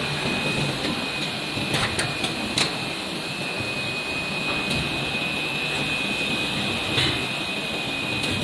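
Injection moulding machine running during a mould trial: a steady mechanical noise with a constant high tone, broken by a few sharp knocks around two seconds in and once more near seven seconds.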